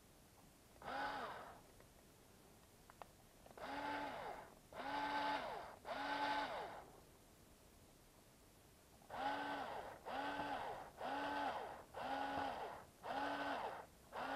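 Cordless electric screwdriver running in about ten short bursts of whirring, each dipping in pitch as it stops: one, then three, then a quick run of six. It is driving a shock mounting screw into an RC buggy's front suspension arm, a little at a time.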